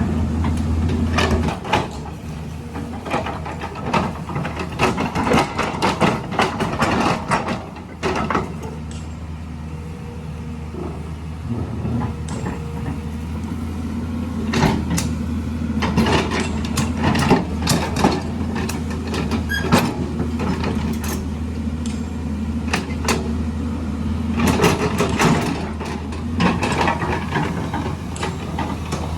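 Heavy diesel earthmoving machine running steadily under load, with repeated clanks and rattles coming in clusters as it works.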